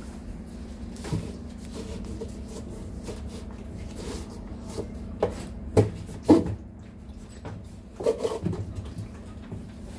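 Handling noise as a red strap is wound around the hub of a washer's plastic basket: rubbing, with a handful of sharp knocks against the plastic tub, loudest about six seconds in and again about eight seconds in, over a steady low hum.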